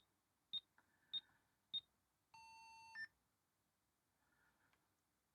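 ZX Spectrum 48K beeper sounding during a diagnostic cartridge's test run: four short high-pitched beeps about every 0.6 s, then a longer, lower buzzy tone of under a second ending in a click about three seconds in.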